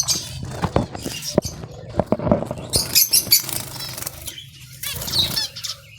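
Zebra finches chirping in an aviary cage, with wings fluttering and several sharp taps and knocks in the first couple of seconds.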